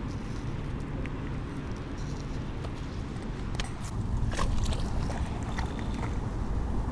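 Steady low rumble, a little louder in the second half, with a few faint clicks and rustles.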